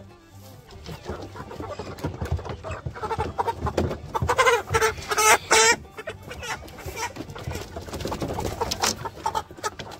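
A truckload of Cornish Cross meat chickens clucking and squawking as they are grabbed and handled, with loud calls about four to six seconds in. Their feet and wings scuffle on the ribbed plastic truck-bed liner throughout.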